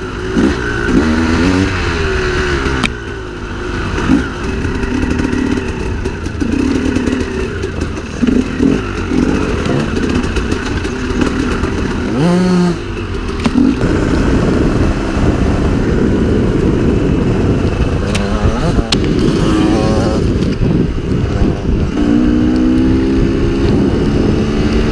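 Onboard sound of a KTM EXC two-stroke enduro motorcycle being ridden, the engine rising and falling in pitch over and over as the throttle opens and closes and the gears change, with a sharp drop and climb in revs about halfway through.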